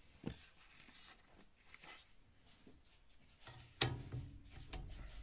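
Handling noises of a Fibo-Install pipe fitting and PEX pipe being worked onto a heating-manifold outlet: scattered small clicks and scrapes, with one sharp click a little before four seconds in, followed by a brief rattle.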